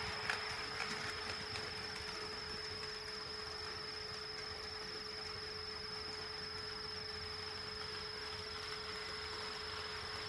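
A steady high-pitched electrical whine with a lower steady hum beneath it, and a few faint clicks in the first second or two.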